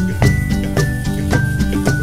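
Background music with a steady beat and a melody that steps from note to note.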